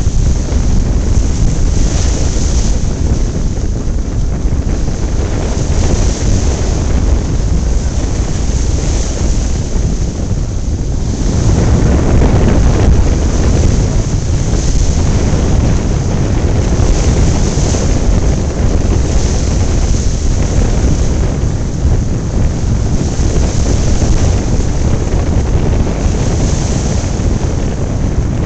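Wind buffeting the microphone with a heavy rumble, over surf washing through a rock jetty and wooden pilings, the hiss of the water swelling every few seconds.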